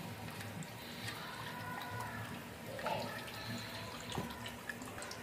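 Hand stirring cornflour into cold water in a steel bowl: faint sloshing and swishing of the thin slurry, with a couple of light knocks against the bowl.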